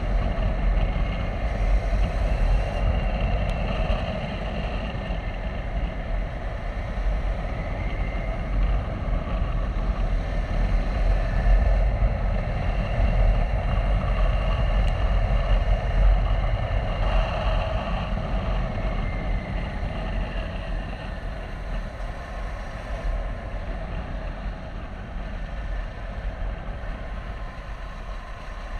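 KTM 390 Adventure's single-cylinder engine running steadily at road speed, with wind buffeting the microphone. The sound eases off gradually over the last several seconds.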